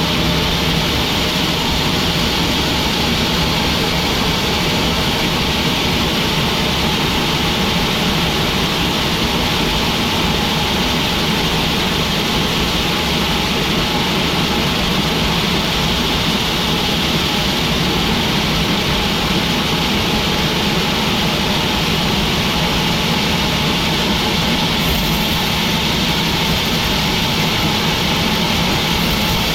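Sawmill machinery running steadily: a continuous loud mechanical drone with a steady hum under it, unchanging throughout.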